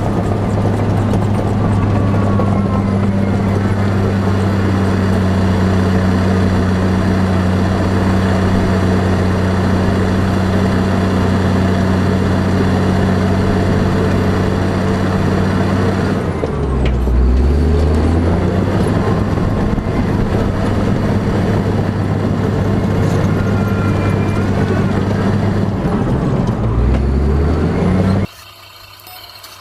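Heavy vehicle engine running steadily with a deep hum, dipping and shifting in pitch briefly about two-thirds in and again near the end, then cutting off abruptly.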